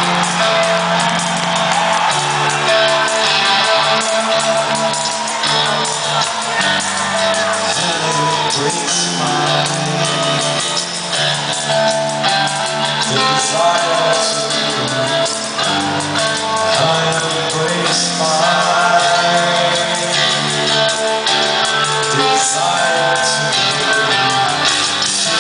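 Rock band playing live in an arena: electric guitar, bass and drums with a voice singing over them, echoing in the large hall.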